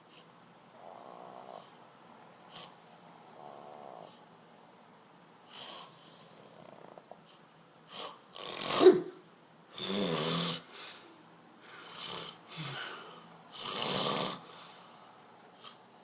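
A sleeping person snoring loudly: a few soft, rattling breaths at first, then from about halfway in four or five loud, harsh snores a second or two apart, the loudest about nine seconds in.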